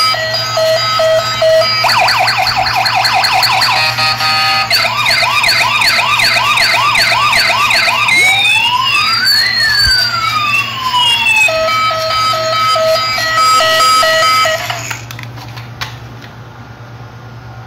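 Robocar Poli toy police car's electronic siren playing through its small built-in speaker. It cycles through several patterns: a pulsing beep, a fast warble, quick rising whoops about two a second, and a slow rising-and-falling wail, then the beeping again. It cuts off about fifteen seconds in.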